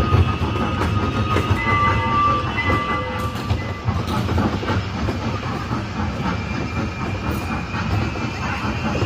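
Recorded sound of a train running on rails: a steady rumble with clickety-clack from the wheels. A few faint high tones come in about two seconds in.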